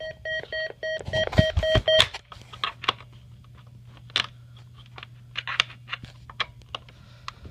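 A rapidly pulsing electronic beep for about two seconds, with a few heavy thumps in its last second. Then only a low steady hum with scattered faint clicks.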